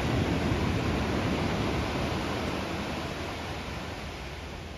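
Ocean surf washing on the shore: a steady rushing hiss that slowly dies away.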